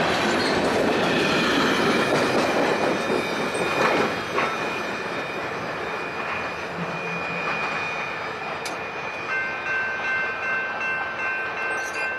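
Freight cars rolling past, their wheels clattering over the rail joints, the noise easing off as the last cars draw away. About three-quarters of the way in, the steady ringing of the grade crossing's warning bell comes through.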